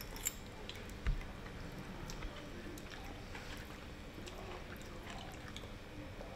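Quiet eating: forks clicking and scraping against ceramic bowls and people chewing, with a scatter of small clicks and a dull thump about a second in.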